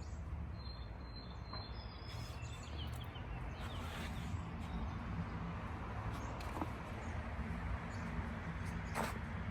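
Outdoor ambience: a steady low rumble with faint bird chirps in the first couple of seconds and a few light clicks.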